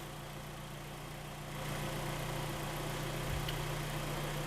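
Kia Sportage engine idling steadily, freshly rebuilt after scored cylinders and running in on new oil while it warms up; it gets slightly louder about a second and a half in.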